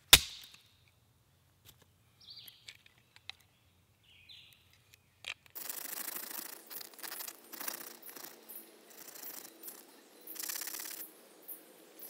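A single sharp crack as a bone is smashed against a stone, followed by a few faint small clicks of splinters being picked over. From about halfway, a run of uneven rasping strokes as a bone sliver is ground against the stone, shaping it into a fishing gorge.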